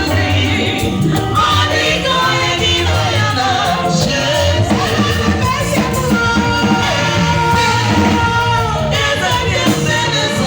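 Live band music with several voices singing together over a steady bass guitar line.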